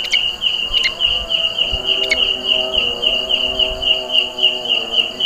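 Belalang kecek, a large green leaf-mimic katydid, calling: a very loud, shrill chirping in a steady run of short pulses, about four a second.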